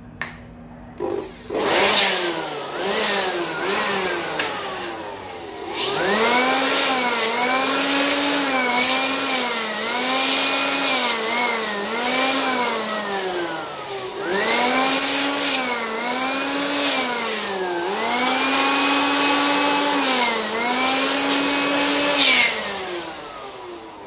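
Handheld electric blower cleaning dust out of an opened laptop, its motor whine surging up and down in pitch about once a second as the trigger is squeezed and eased. After a couple of short blips it runs in pulses, and it stops just before the end.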